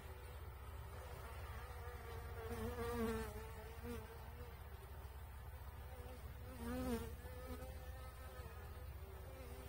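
Honeybees buzzing in an open hive: a steady, pitched hum that swells louder twice, about three and seven seconds in.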